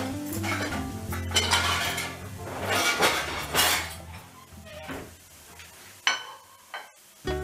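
Kitchen utensils clinking and scraping against a frying pan over background music. The music drops out about halfway, and a sharp clink comes near the end.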